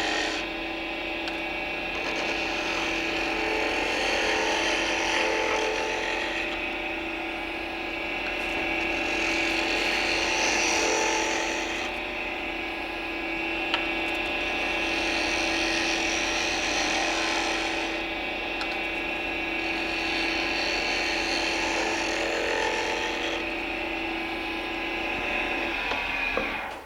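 Wood lathe running with a turning tool cutting a spinning wooden ball held between cup holders: a steady motor hum under a cutting hiss that swells and eases in passes every few seconds as the rough ball is trued up. The sound cuts off suddenly near the end.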